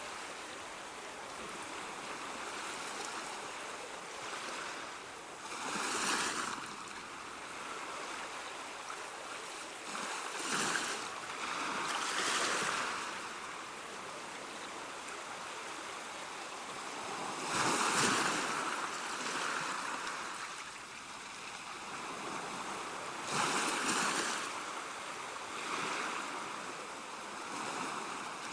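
Ocean waves washing in over steady surf hiss, with a louder surge every five or six seconds as each wave breaks.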